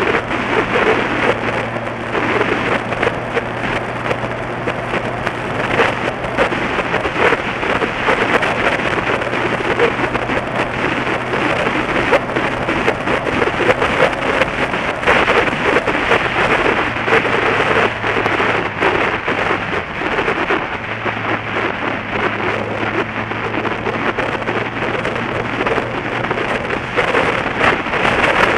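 Wind buffeting and road noise on the camera's microphone from a vehicle travelling at road speed, with a steady low engine drone underneath that shifts slightly about two-thirds of the way through.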